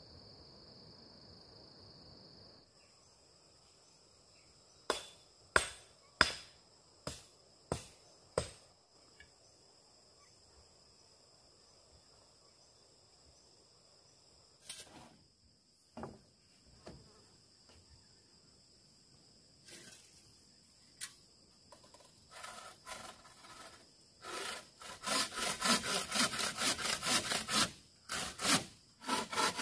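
A handsaw cuts through a bamboo pole with fast, even back-and-forth strokes in the last few seconds. Before that come a series of sharp wooden knocks. Insects keep up a steady high buzz throughout.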